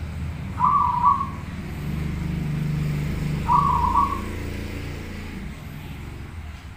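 Zebra dove (perkutut) cooing: two short calls about three seconds apart, each a quick run of a few notes.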